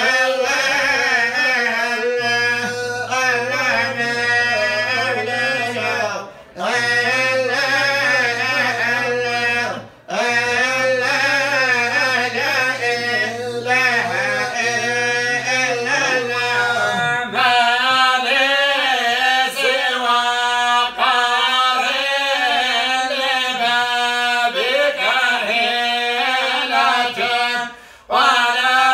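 A man's voice chanting unaccompanied Arabic religious recitation in long, ornamented melodic phrases. It breaks briefly for breath about six and ten seconds in and again near the end.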